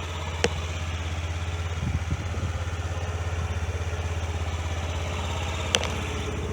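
Honda NPS50 Zoomer scooter's 49cc four-stroke single-cylinder engine idling steadily, with two sharp clicks, one about half a second in and one near the end.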